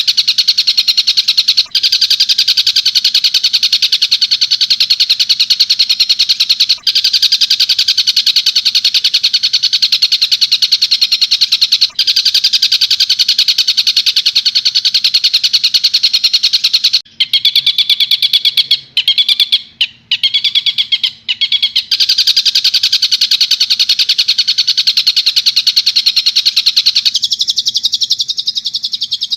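Recorded tengkek buto kingfisher call: a loud, rapid, unbroken chattering trill, broken by a few short gaps about two-thirds of the way through. A faint steady electrical hum runs beneath it.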